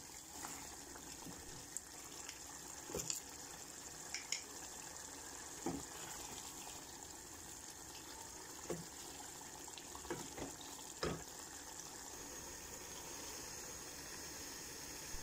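Spiced biryani liquid simmering and sizzling steadily in an aluminium pot, while a wooden spoon stirs it and knocks against the side of the pot every second or so through the first ten seconds.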